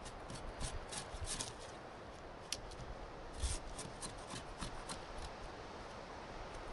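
Knife blade shaving bark and wood off the edge of a wooden rabbit stick (throw stick), a series of short scraping strokes at uneven intervals.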